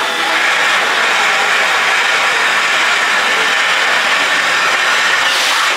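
Steam hissing steadily and loudly from a standing Class C61 steam locomotive. The hiss eases slightly right at the end.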